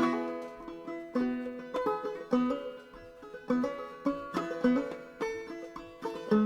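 Five-string Harley Benton BJ-55Pro banjo played clawhammer style, in double C tuning (GCGCD) with a capo at the fourth fret: a steady rhythm of plucked notes, each striking sharply and ringing down.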